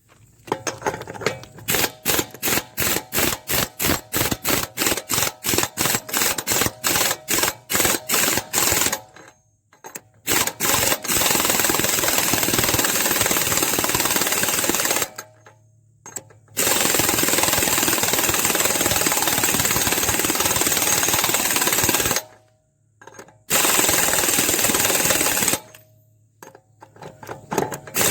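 Impact wrench with a deep-well socket hammering on a seized front axle nut to break it loose. It starts as a string of short, quick bursts, about three or four a second, then runs in three long continuous stretches of several seconds each with short pauses between.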